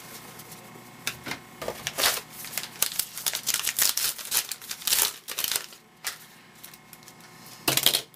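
Crinkling and rustling of a trading-card pack wrapper being torn open, with the cards inside being handled; a run of short crackles, and a louder rustle near the end.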